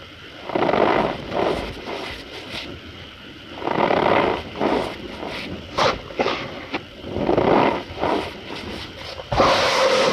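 Cornstarch powder squeaking and crunching as it is squeezed and pressed by hand, in about a dozen irregular short bursts.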